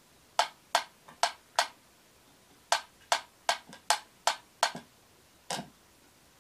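Wind-up pyramid metronome ticking in sharp clicks, about three a second. The beat is uneven: it stalls for about a second after the first four ticks and falls to a single late tick near the end, as a kitten paws at the swinging pendulum.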